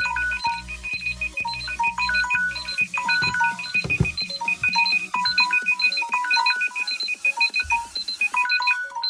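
Electronic phone alarm ringtone: a fast, steady run of short high beeps over a plinking melody of short notes, with a low pulsing beat underneath that drops out about three seconds in.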